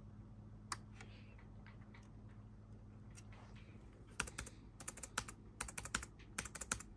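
Rapid keystrokes on a Dell laptop keyboard, starting about four seconds in after a couple of isolated clicks.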